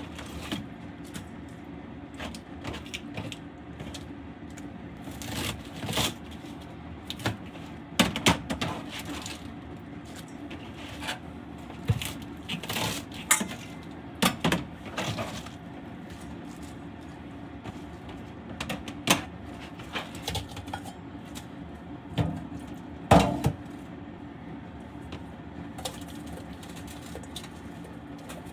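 Kitchen knife chopping cabbage on a plastic cutting board, with irregular knocks and clicks of the blade, the leaves and stainless steel bowls being handled, a few of them louder. A steady low hum runs underneath.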